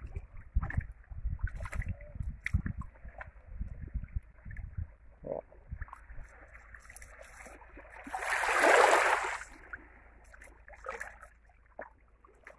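Wind buffeting the microphone at the water's edge, with a brief rush of water about eight seconds in, a small wave washing up the sand, which is the loudest sound.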